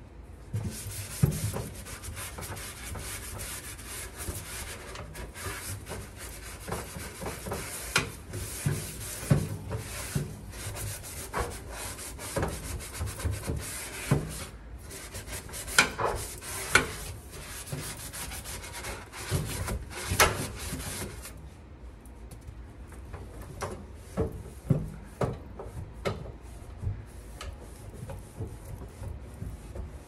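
Scrub pad scrubbing the inside of a toaster oven, a dense scratchy rubbing in quick strokes that stops about two-thirds of the way through. Quieter wiping with a few light knocks follows.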